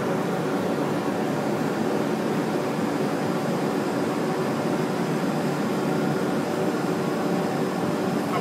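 Komori Lithrone LS 529+C sheetfed offset press, five printing units plus coater, running: a steady, even mechanical noise with a few faint steady tones in it.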